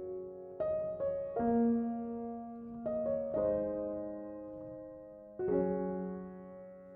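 Slow, soft piano music: chords and notes struck a few at a time, each left to ring and fade out before the next.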